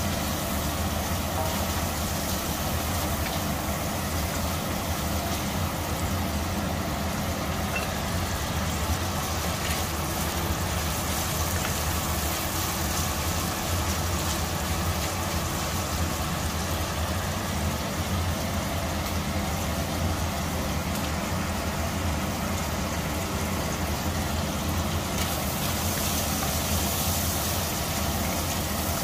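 Prawns and garlic frying in oil in a stainless steel wok, a steady sizzle over a constant low hum, with a wooden spatula stirring them.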